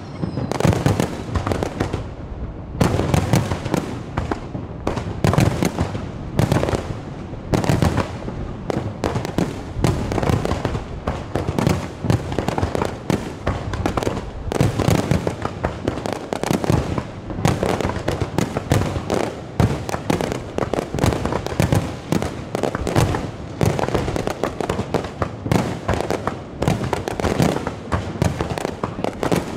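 Fireworks display: aerial shells bursting in a rapid, unbroken run of booms and crackle, several a second.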